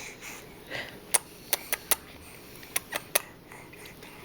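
A string of sharp clicks and taps, about nine spread unevenly over a few seconds, from a small hard object being handled.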